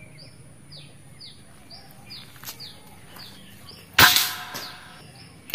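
Bocap air rifle firing: a sharp crack about four seconds in that dies away over about half a second, and a second crack just at the end. Before the shots, a bird repeats short, high, falling chirps about twice a second.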